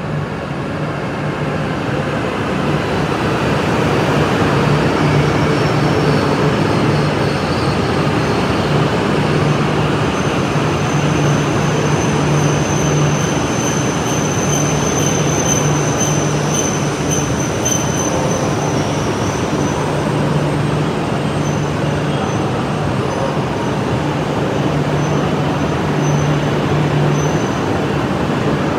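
E6 and E5 series Shinkansen train, coupled, pulling into a station platform and slowing to a stop: a steady rumble of wheels and running gear that grows louder over the first few seconds as the cars come close, with a steady low hum underneath. A thin high squeal comes in while it brakes, from about ten seconds in to about nineteen.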